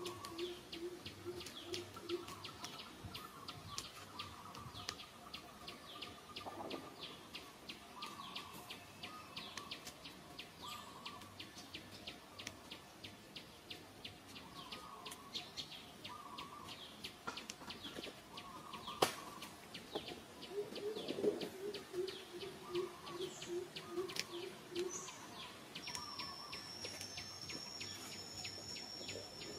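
Outdoor woodland ambience: birds calling, including a quick run of low hooting notes heard twice, with the second one after about twenty seconds, over many faint clicks. Near the end a steady high insect trill starts.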